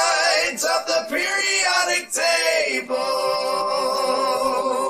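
Isolated lead vocals of a song, sung without instruments by layered voices, closing on a long held note.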